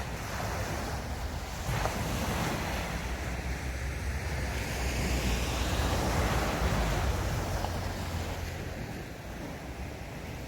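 Sea waves breaking and washing up a sand beach, one swell building to its loudest midway and then easing off, with wind buffeting the microphone in a low rumble.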